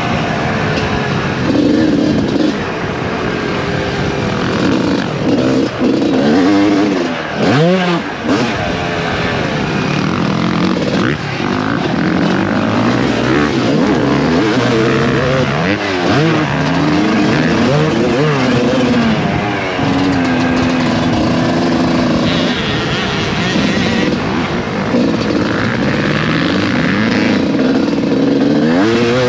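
Suzuki RM250 two-stroke single-cylinder motocross engine under load, its note rising and falling over and over as the throttle is opened and closed and the gears change.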